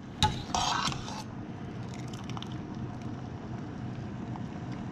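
Cooked spaghetti being served onto a plate: a click of a utensil, a short soft wet rustle about half a second later, then a low steady background noise.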